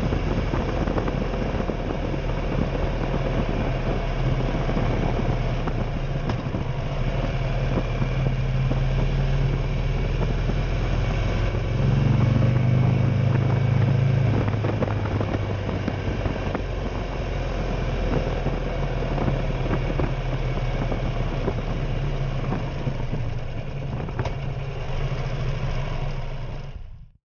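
Buell motorcycle engine running under way, heard from on the bike with road and wind noise. It gets louder with a rise in pitch about twelve seconds in, eases off again, and cuts off suddenly near the end.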